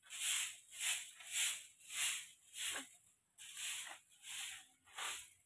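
Stiff bundled-twig broom sweeping a concrete path, a brisk scratchy swish about twice a second, with a short pause about three seconds in.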